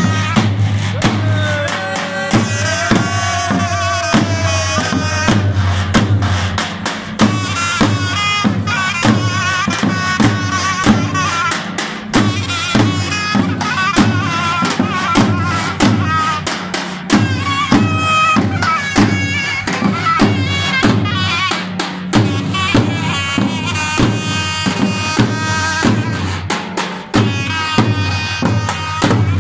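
Davul and zurna playing a folk dance tune: the zurna's shrill, wavering reed melody over steady, regular beats on the double-headed davul drum.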